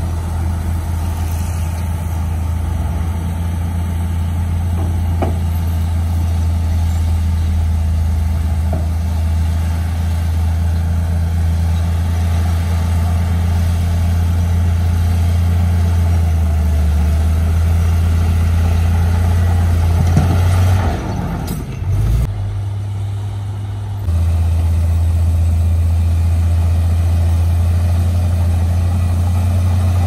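Heavy diesel engine of construction machinery running steadily with a low drone. About twenty seconds in the engine note shifts and wavers, drops away for a couple of seconds, then comes back suddenly.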